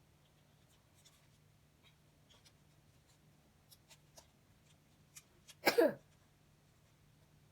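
A paper cup and rubber band being handled: faint scattered taps and rustles of fingers working the band into slits cut in the cup, which doesn't want to fit. A little before 6 s comes one louder short sound with a falling pitch.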